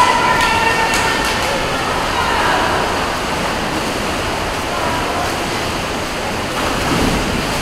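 Swimmers splashing through the water during a race in a pool, a steady wash of water noise mixed with spectators' voices.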